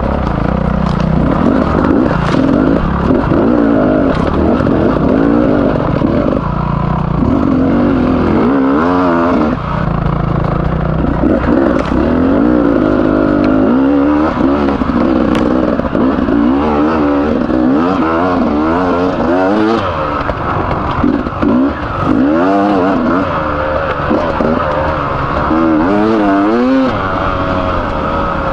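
Beta 300RR two-stroke single-cylinder enduro engine ridden on a trail, its revs rising and falling continually with the throttle. The engine is freshly rebuilt with a new piston and new bearings after a dry crank bearing failure.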